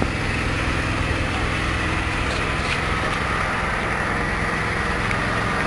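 Small 5.5 hp petrol engine of a horizontal pellet mill running steadily at a constant speed.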